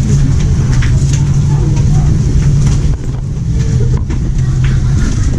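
An engine running steadily, a constant low hum over a rumbling background, with a brief dip in level about three seconds in.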